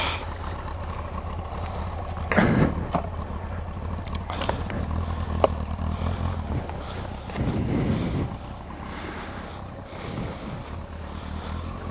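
Motorcycle engine running steadily at low revs, with a couple of brief louder swells of noise.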